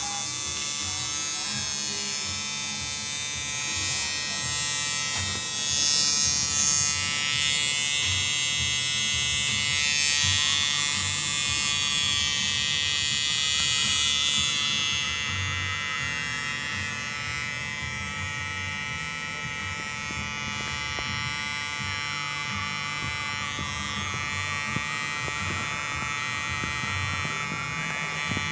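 Coil tattoo machine buzzing steadily as it inks skin, a little quieter from about halfway through.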